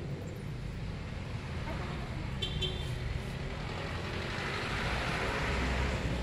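Street traffic: a steady low rumble of road vehicles, swelling louder in the last couple of seconds as a vehicle goes by.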